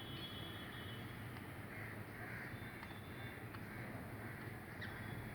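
Two budgerigars chattering softly, with short chirps and scratchy calls and a few sharp clicks over a faint steady hum.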